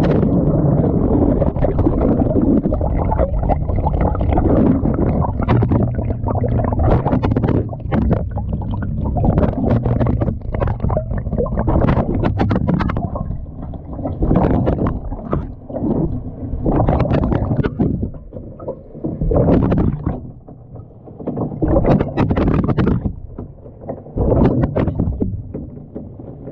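Water sloshing and churning in a tumbling washing machine drum, heard from inside the drum. It runs steadily at first, then comes in separate surges about every two and a half seconds in the second half.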